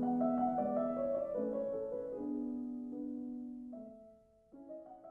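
Closing theme music: slow, sustained keyboard chords changing every half second or so, fading out about four seconds in, then a quieter new chord near the end.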